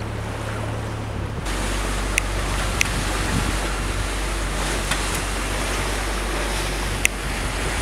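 Water rushing and splashing along the hull of a Wharram catamaran under sail, with wind rumbling on the microphone. The sound changes abruptly about one and a half seconds in, and a few faint ticks sound over the steady rush.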